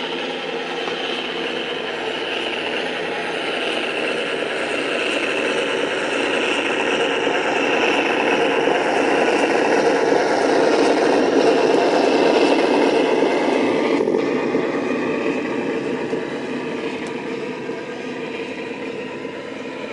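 A 1:14 scale RC Volvo F88 truck running across a wooden floor with a steady engine-like drone and mechanical rattle. It grows louder as the truck comes close about halfway through, then fades as it drives away.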